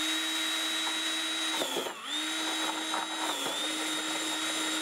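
Cordless drill running a 2 1/8-inch hole saw slowly through the wall of a plastic barrel: a steady motor whine whose pitch dips briefly about two seconds in and slightly again a little later. It is run slow because this hole saw's arbor does not lock and the saw spins on it if driven too fast.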